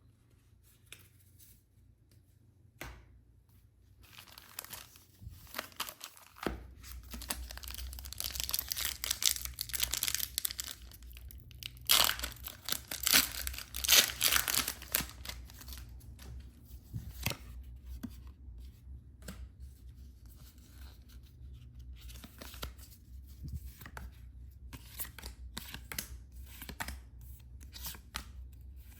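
Plastic and foil packaging being torn open and crinkled by hand. It is faint at first, then a long bout of tearing rises to its loudest in two sharp rips, followed by lighter rustling and handling clicks.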